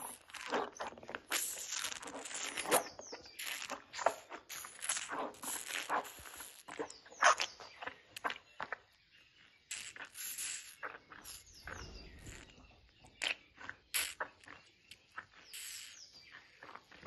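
African elephant calf sucking milk formula from the rubber teat of a calf nurser bottle, in quick irregular sucks and slurps, with a quieter stretch about halfway through.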